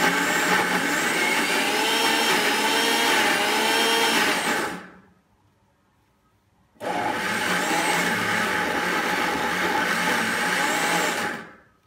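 Electric mixer grinder grinding roasted peanuts with honey, oil and salt into peanut butter, run in two bursts with a pause of about two seconds between, the motor whine wavering in pitch. Each run winds down as it is switched off, the grinding done in pulses.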